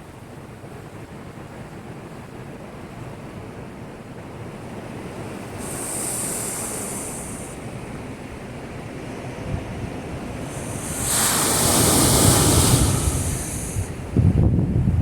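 Rough typhoon swell surging against a breakwater: a steady wash of surf, with a hissing surge about six seconds in and a bigger, louder surge of spray from about eleven to fourteen seconds. A sudden low rumble starts just before the end.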